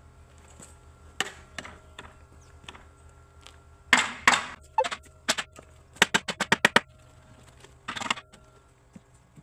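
Sharp knocks and cracks of carpentry work on wood. There are a few single strikes, louder bursts around the middle, and a quick run of about eight sharp clicks in under a second.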